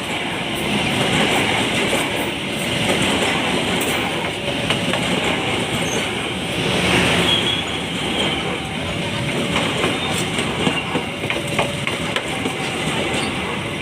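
Train passing close by: a steady, loud rumble of wheels on the rails.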